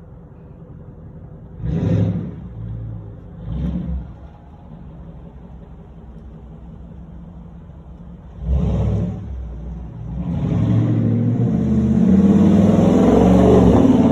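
Hemi V8 car engine revving in three short blips, then pulling away with a longer, building engine note that is loudest near the end.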